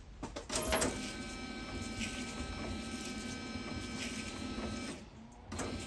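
Land Rover Defender 90's electric windscreen washer pump and wipers running, with Optimill washer jets spraying water across the windscreen: a steady whir with a spray hiss that starts about half a second in and cuts off about five seconds in.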